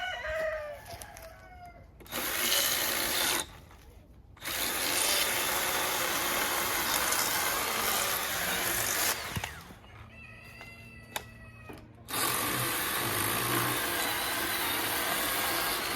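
Cordless electric chainsaw cutting cherry wood in three runs: a short burst about two seconds in, a longer cut of about five seconds, then a cut that starts about twelve seconds in and keeps going. A rooster crows at the start and again in the pause between cuts.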